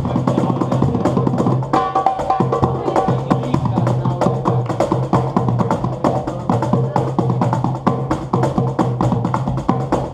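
Live band playing: a fast clicking percussion rhythm over a steady low note.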